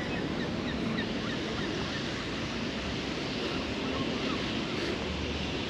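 Steady rush of wind and surf on an open seafront, with wind buffeting the microphone.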